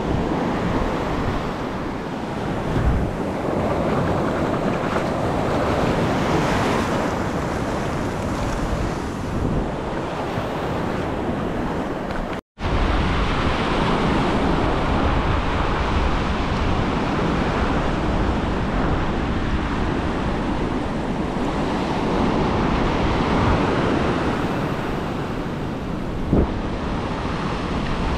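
Ocean surf breaking and washing up a sandy beach, swelling and easing with each wave, with wind buffeting the microphone. The sound cuts out for an instant about halfway through.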